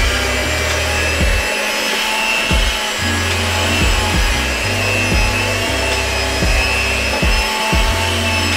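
Electric hand mixer running steadily, its beaters churning a vanilla brown butter batter in a glass bowl while melted brown butter is poured in.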